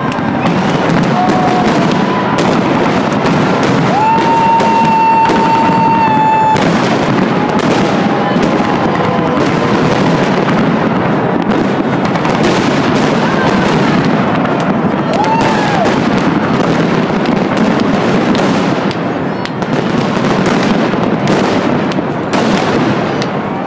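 Fireworks going off in a rapid, continuous barrage of bangs and crackles. A few whistling tones sound over them, the longest a steady whistle held for a couple of seconds about four seconds in.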